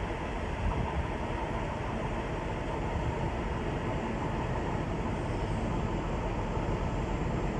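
Railway train running at the platform, a steady low rumble with a faint steady tone above it.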